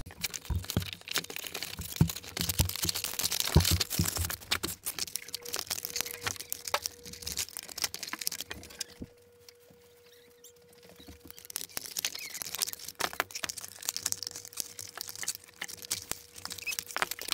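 Cardboard box and packaging being handled while an RC car is unboxed: rustling, crinkling and small knocks, with a quiet lull about halfway through.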